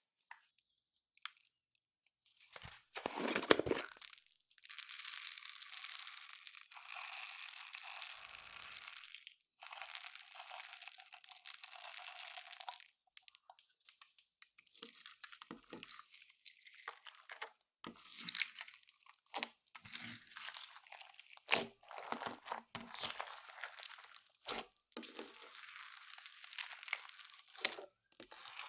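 Clear slime being worked by hand with makeup and glitter mixed in: sticky crackling and tearing. Two long stretches of steady crackling are followed by many short pops and clicks.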